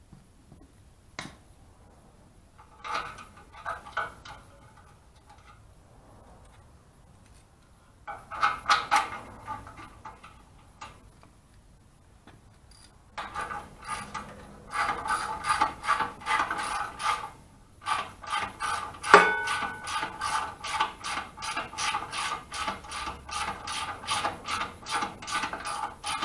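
Ratchet wrench clicking as a bolt on the log splitter's engine is worked loose: a few short runs of strokes, then from about halfway a long, even run of quick clicks.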